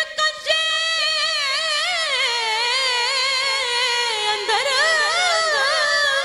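A woman singing unaccompanied Punjabi devotional verse: after a brief break she holds one long, ornamented note that wavers and slowly sinks in pitch.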